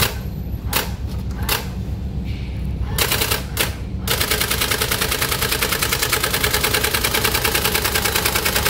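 Brother GX-6750 electronic typewriter's daisy-wheel print mechanism striking by itself: a few separate clacks, then from about four seconds in a fast, steady run of strikes over a low hum. This is the fault of the typewriter typing on its own with no key pressed.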